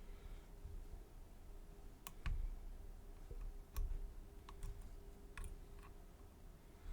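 Faint, sparse clicks of a lock pick working the pins of a Mul-T-Lock Garrison lock, about seven small ticks at irregular intervals, over a faint steady hum.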